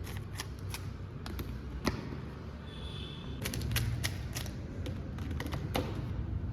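Plastic Rubik's cubes clicking and clacking as they are handled and set down, in irregular sharp taps over a steady low rumble.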